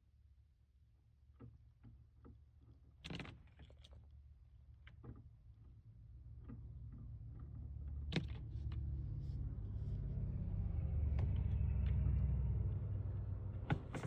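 Low vehicle engine rumble that grows louder from about the middle and peaks near the end, as a motor vehicle approaches or passes, with a few scattered light taps.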